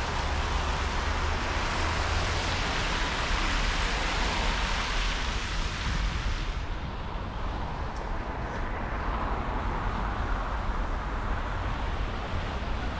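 Steady city street traffic: cars and other vehicles running past on a busy road with a low rumble. The higher hiss cuts off abruptly about six and a half seconds in, leaving a duller rumble.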